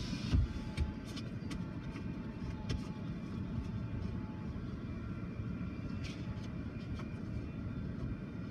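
Steady low rumble heard from inside a car while a freight train of covered hopper cars rolls past, with a couple of short knocks at the very start.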